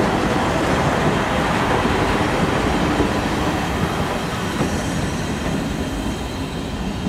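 Passenger coaches rolling past on the rails, a steady rumble of wheels on track that eases a little toward the end as the train draws away.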